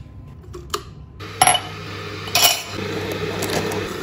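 Two sharp clinks of a glass teapot and its metal infuser being handled, over a steady hiss from an electric kettle heating water that fills out about two-thirds of the way through.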